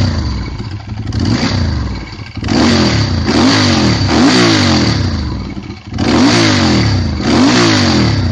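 Ducati 916's 90-degree V-twin idling, then blipped about five times from about two and a half seconds in, the revs snapping up and falling back after each blip.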